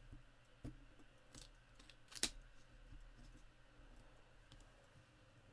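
Faint taps and clicks of tweezers and paper while small adhesive embellishment dots are placed on a card, with one sharper click about two seconds in.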